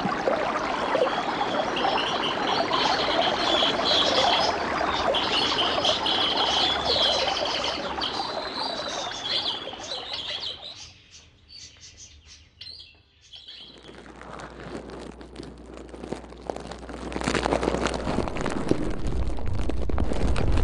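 Water running in a stream with birds chirping over it, fading out about halfway. After a short lull, a low rumble builds with many crackles, getting louder near the end.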